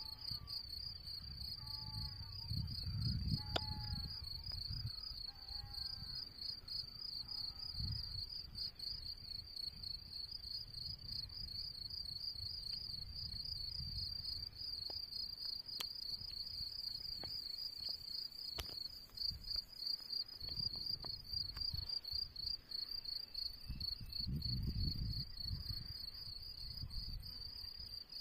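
Crickets chirring steadily in a continuous, high, pulsing trill, with a few short bird chirps in the first several seconds. Gusts of low rumble from wind on the microphone come and go.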